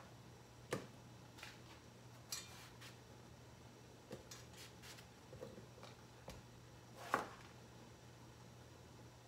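Crab simmering in coconut milk in a glass-lidded pan: faint scattered pops and ticks from the bubbling, the loudest about a second in and about seven seconds in, over a steady low hum.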